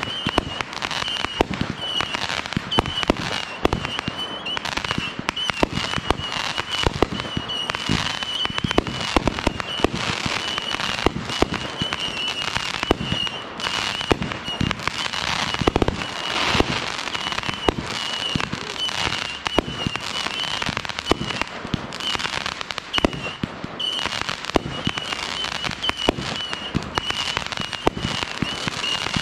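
Consumer aerial firework cakes firing in quick succession: a dense string of launch thumps, bangs and crackling star bursts. A steady high-pitched whine runs faintly underneath.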